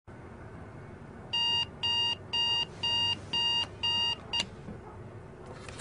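Digital bedside alarm clock beeping: seven short, high-pitched electronic beeps about two a second, stopping on a brief seventh beep as a hand switches it off.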